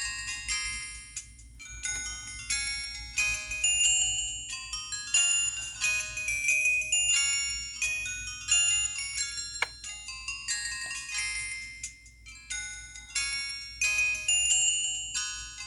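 Samsung SGH-T629 phone playing a downloaded ringtone: a melody of short pitched notes that each start sharply and fade away.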